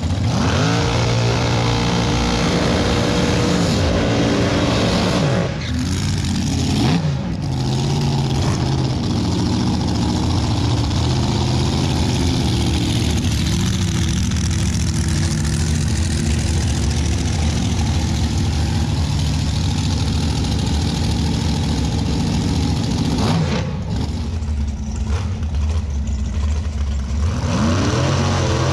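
Loud drag-race car engines running, revved up and down about a second in, again around six to seven seconds, and once more near the end.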